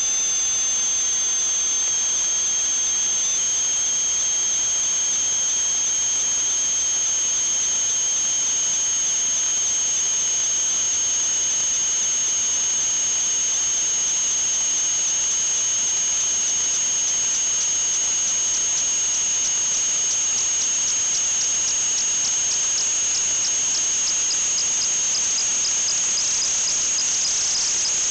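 A steady high-pitched whistle of two held tones over a hiss; about two-thirds of the way in the upper tone starts pulsing rapidly.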